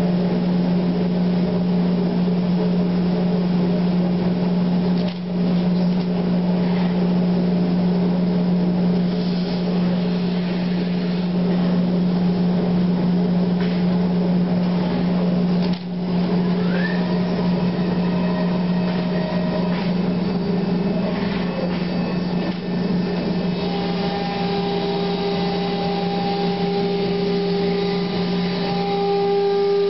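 C.R. Onsrud Panel Pro CNC router running, a steady low machine drone. It dips briefly about five and sixteen seconds in, and higher steady tones join from about twenty-four seconds on.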